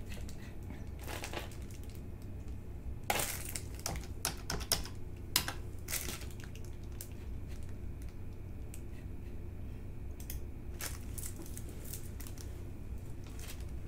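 Scattered short clicks and crackles of a clear plastic sleeve around a rolled diamond painting canvas being handled, over a steady low hum.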